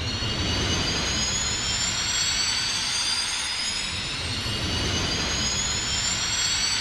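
Jet-engine sound effect: a whine of several tones rising slowly in pitch over a steady low rumble.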